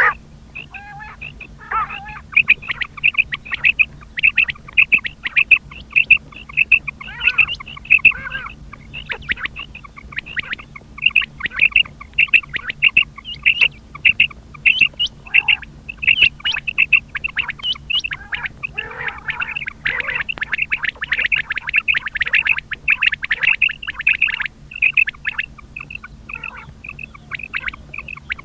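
Common quail calling: short, sharp notes repeated quickly, several a second, in long runs with brief breaks.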